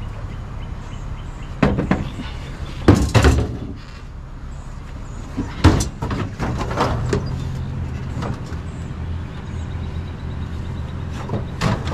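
Vehicle engine idling steadily under a series of sharp knocks and clunks, about two and three seconds in, a cluster around six to seven seconds, and more near the end.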